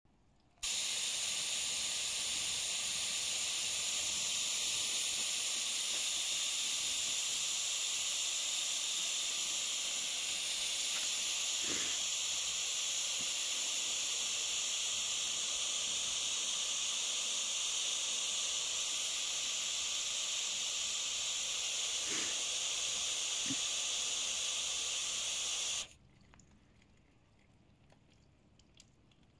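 A steady hiss of water spraying from a nozzle, cutting off suddenly a few seconds before the end and leaving only faint drips.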